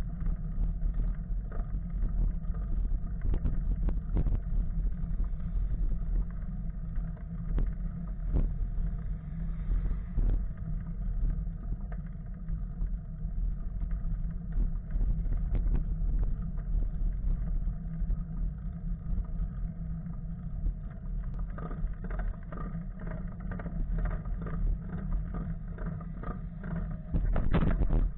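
Steady wind noise on the microphone and road rumble from riding a bicycle along a paved road, with scattered knocks and rattles. Near the end a car passes close alongside with a brief louder rush.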